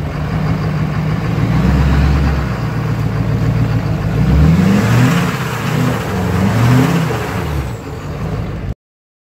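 LLY Duramax 6.6-litre V8 turbo-diesel running at a steady idle, then revved up and back down three times in quick succession; the sound cuts off abruptly near the end.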